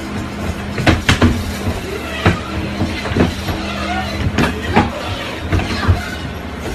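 Electric home treadmill running, its motor and belt giving a steady hum, with a series of irregular thumps and knocks as a child is thrown off the moving belt and hits the floor.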